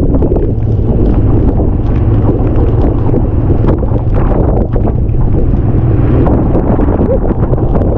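Wind buffeting the microphone on a moving vehicle: a loud, steady, rumbling roar with vehicle running noise underneath.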